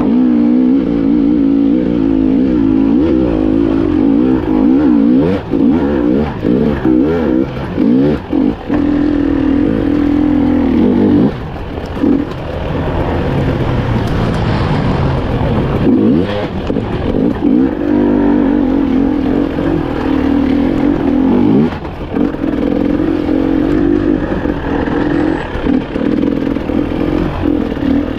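300 cc two-stroke enduro motorcycle engine being ridden hard, revs rising and falling with the throttle, with a few brief drops where the throttle is shut.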